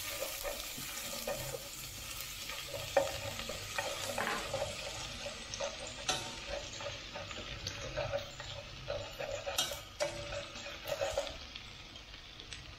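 Minced garlic and shallots sizzling in hot cooking oil in an aluminium stockpot, frying until golden, while a wooden utensil scrapes and taps against the pot as they are stirred. The stirring stops near the end and the sizzle grows quieter.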